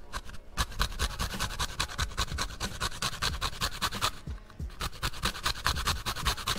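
Lime rind being grated on a small metal box grater: quick rasping strokes, several a second, with a short pause about four seconds in.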